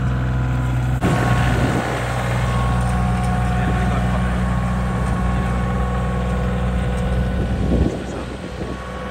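Compact tractor with a front loader, its engine running steadily as it drives through the snow. The sound drops a little near the end as the tractor pulls away.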